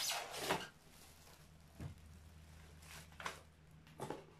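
Unpacking handling noise: a brief rustle at the start, then a few soft knocks as the circular saw and its box contents are moved, over a faint steady hum.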